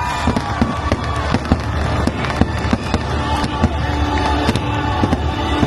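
Fireworks bursting in a dense run of sharp bangs and crackles, several a second, over a continuous low rumble.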